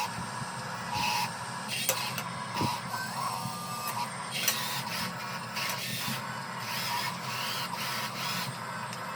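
Electric motors and plastic-and-metal gearboxes of a radio-controlled model construction vehicle whirring, with a steady whine and repeated short surges and clicks as the drives start and stop.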